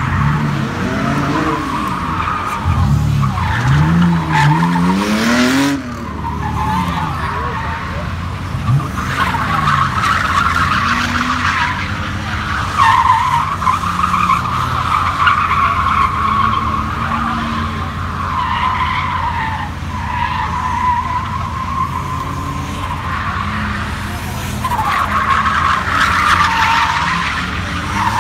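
Drifting cars, a BMW 3 Series saloon and a Mazda MX-5: engines revving up and down while the tyres squeal in a long, wavering screech through most of the stretch.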